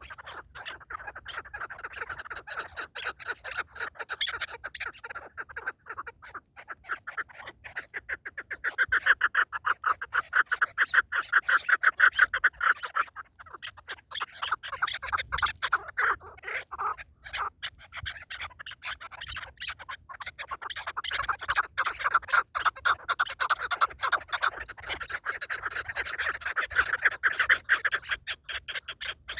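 Partridge calling: a long run of rapid, repeated chuckling notes, louder about a third of the way in and again near the end.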